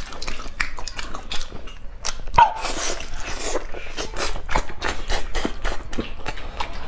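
Close-up mouth sounds of eating braised meat: wet chewing and lip smacking in a quick, uneven run of clicks, with a louder breathy rush about two and a half seconds in.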